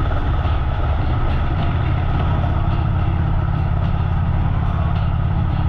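Harley-Davidson V-twin motorcycle engine running steadily under way, a deep even drone with a rushing haze over it.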